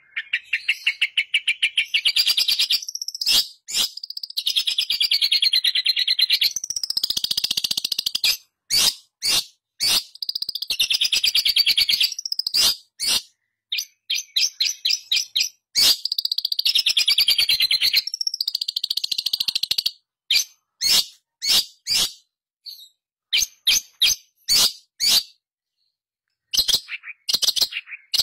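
Long-tailed shrike (pentet) singing: several long phrases of fast, buzzy chattering notes, each a few seconds long with short pauses between. From about two-thirds of the way through these give way to separate short, sharp notes.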